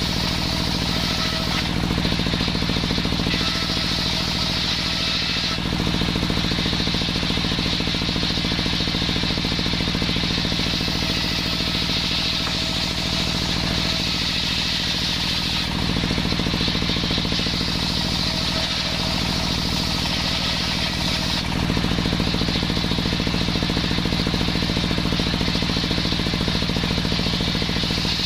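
Homemade engine-driven circular saw running steadily while sawing waru (sea hibiscus) wood, its tone shifting in several stretches of a few seconds each as the blade works.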